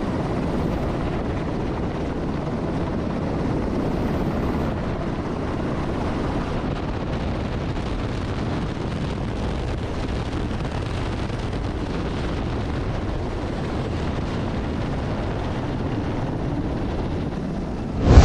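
Steady aircraft engine noise on a carrier flight deck, an even rushing sound with no speech, cut off right at the end by a sudden loud bang.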